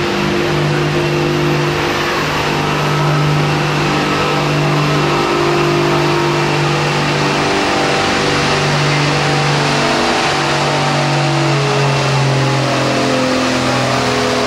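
Case 1070 tractor's six-cylinder diesel engine working hard under load as it pulls a weight-transfer sled. Its pitch shifts up and down several times.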